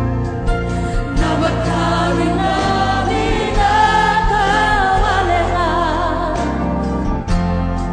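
Church worship choir singing a gospel song in several voices, with wavering held notes over a steady low band accompaniment.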